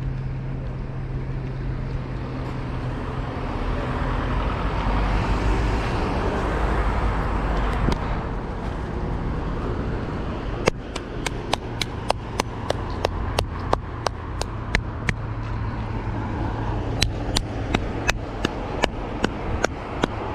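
Road traffic noise that swells as a vehicle passes about five to eight seconds in. From about eleven seconds in come regular sharp footfalls on pavement, about two and a half a second: a runner's stride.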